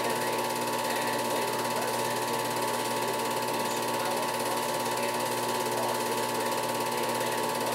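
Film projector running: the steady mechanical rattle of the film being pulled through the gate, with a constant whine.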